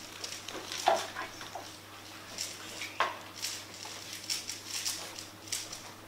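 Plastic Thunderclap 3x3 speedcube being turned quickly by hand: an irregular run of light clicks and clacks from the layers snapping round, with two sharper clacks about a second in and three seconds in.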